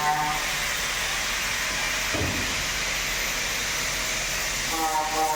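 Plastic thermoforming vacuum forming machine running with a steady hiss of air and a brief low thud about two seconds in; a steady machine tone comes in near the end.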